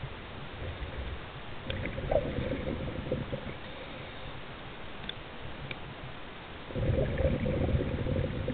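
Muffled underwater noise picked up through a camera housing, with two louder gurgling surges about five seconds apart, like a scuba diver's exhaled regulator bubbles.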